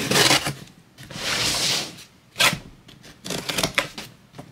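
Blade slitting the packing tape along the seam of a cardboard shipping box: two rasping strokes in the first two seconds, then a sharp scrape and a run of small taps and knocks as the cardboard box is handled.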